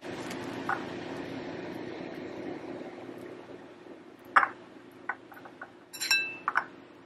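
A kitchen knife and avocado slices knocking and clinking against a ceramic bowl: a few scattered light knocks, then a short ringing clink near the end, over a steady low hum.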